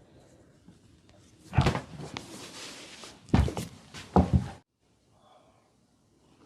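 Hands working the body in a massage: a hard thump about a second and a half in, then three more close together nearly two seconds later, over rubbing noise. The sound cuts off suddenly about two-thirds of the way through.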